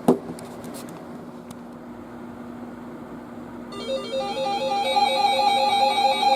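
A sharp click, then a steady hum with hiss; about four seconds in, weather radio receivers start sounding their alert tones, several electronic beeping tones overlapping in a fast repeating pattern and getting louder, the alarm for an incoming warning.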